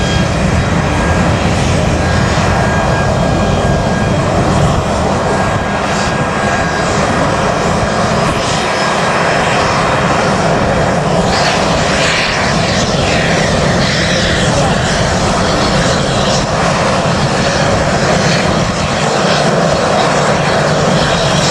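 Jet engines of an Airbus A320-family airliner running at taxi power as it rolls slowly past. The sound is a steady, loud, even noise without pause.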